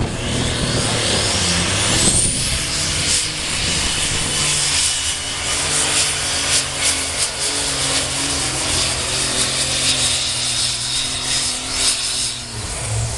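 Super Stock pulling tractor's turbocharged diesel engine running flat out as it drags the weight sled down the track. A high whine climbs over the first two seconds, then comes a steady, loud engine note with a crackling exhaust. The engine note falls away shortly before the end as the pull finishes.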